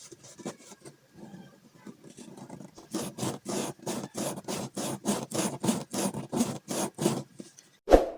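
Rhythmic scraping or rubbing strokes, faint at first, then steady at about three to four a second, followed by a single thump near the end.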